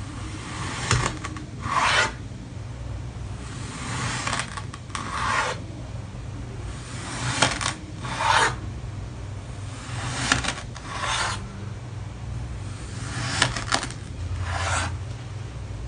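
Kinetic sand being cut with a blade: about ten short, grainy scraping strokes, one every second or two, some starting with a sharp click. A faint steady low hum runs underneath.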